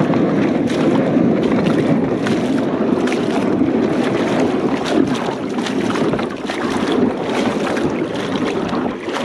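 Wind buffeting the microphone: a steady rushing noise broken by many short crackles.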